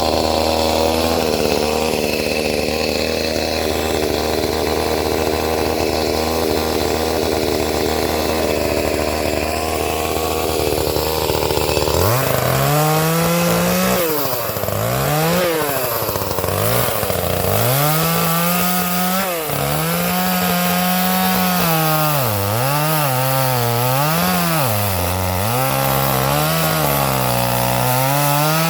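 Gas chainsaw cutting wood. For about the first twelve seconds it runs at a steady high speed in the cut; then the engine pitch rises and dips over and over as the throttle is worked and the chain bogs down and frees up in the wood.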